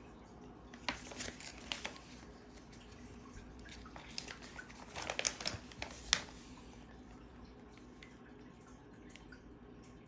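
Clear plastic packaging bag crinkling as it is handled, in two spells of sharp crackles: one about a second in and a longer one from about four to six seconds in.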